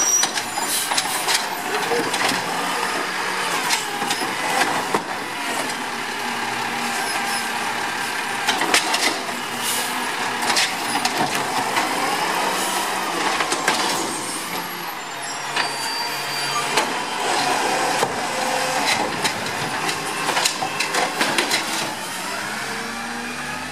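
Small automated side-loader garbage truck working a row of curbside carts: the engine runs and the hydraulic arm whines up and down, with repeated clanks and bangs as a plastic cart is lifted, shaken out and set back down.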